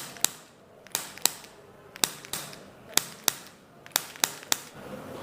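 A run of about ten sharp clicks, mostly in quick pairs roughly once a second.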